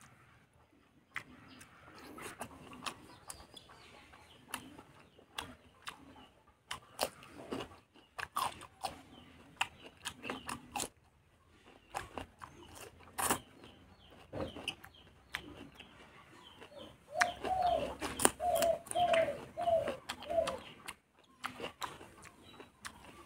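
Close-miked chewing of spicy fatty pork with rice, boiled mustard leaves and onion: irregular wet mouth clicks, smacks and crunches. Near the end, five short pitched calls come in quick succession.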